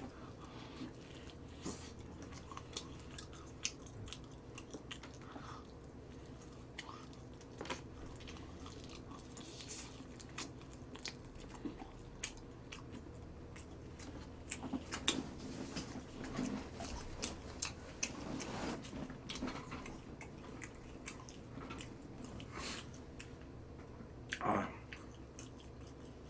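Close-up chewing and biting of crispy fried chicken, with small crunches and wet mouth clicks throughout, busiest in the middle. Near the end a short louder cough into the hand.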